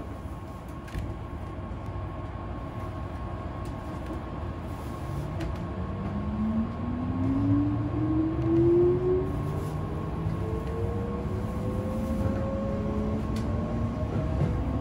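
Keihan 8000 series electric train pulling away from a station, heard from inside the car: a low rumble of the running gear over a steady high hum. About five seconds in, the traction motor whine starts and climbs steadily in pitch as the train picks up speed.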